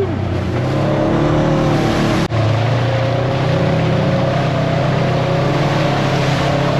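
The Polaris RZR 900 side-by-side's engine running steadily under throttle, with a steady rush of noise over it and a momentary break a little over two seconds in.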